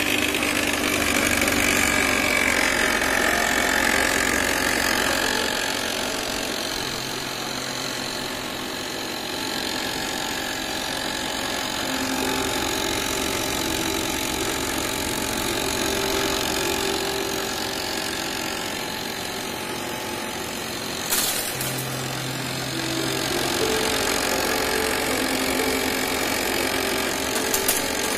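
Homemade corn cracker, a bread-tin drum driven by a small electric motor, running steadily as it cracks dried corn kernels.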